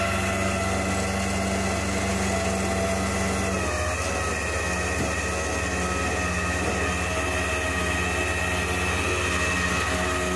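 Flatbed tow truck's engine idling steadily, its note shifting slightly about four seconds in.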